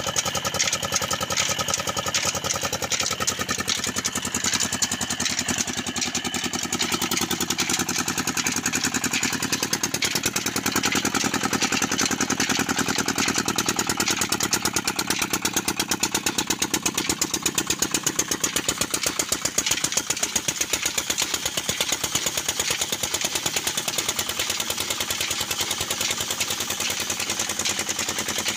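Stationary single-cylinder diesel engine running steadily with a rapid, even firing beat while driving flat belts.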